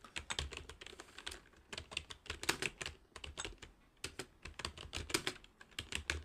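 Touch-typing on a computer keyboard: quick runs of key presses, several a second, with short pauses between bursts.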